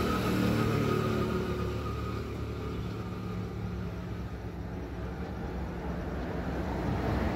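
Steady low engine rumble of a motor vehicle, with a faint high whine in the first couple of seconds that fades out.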